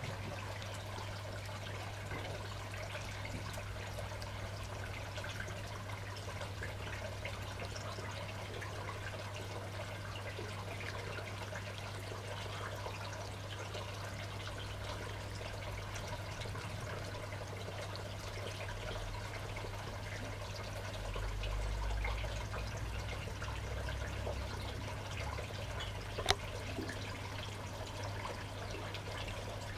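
Two cats eating wet cat food from a plate, with soft wet chewing, smacking and lapping throughout over a steady low hum. One sharp click sounds near the end.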